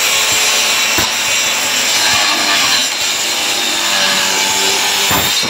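Angle grinder fitted with a wood-cutting disc running at full speed and cutting into wood: steady, loud noise with a high whine running through it.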